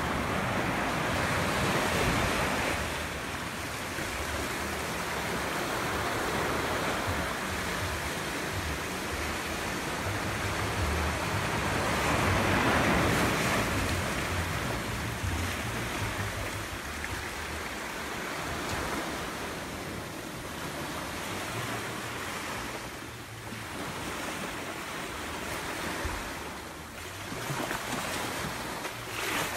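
Small waves washing onto a sandy beach, the surf swelling and easing every several seconds.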